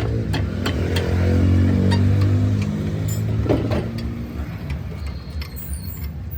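A car engine running, rising in pitch and growing louder for a couple of seconds from about half a second in, then easing back, with scattered sharp clicks and knocks.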